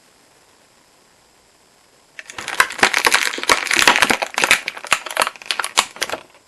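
Toy packaging being handled and crumpled: a dense crackling and crinkling with many sharp clicks, starting about two seconds in and lasting about four seconds.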